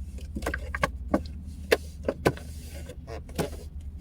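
Crinkling and clicking of a store-bought muffin's packaging being handled and opened, a string of sharp irregular crackles, over a steady low hum.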